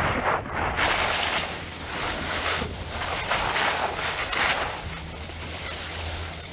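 Wind buffeting the microphone while skiing downhill, with the skis hissing and scraping over the snow through the turns, swelling and fading as he carves.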